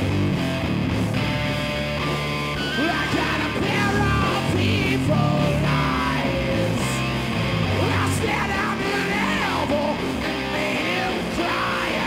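Live rock band playing loudly, electric guitar over the band, with shouted vocals coming in about three seconds in.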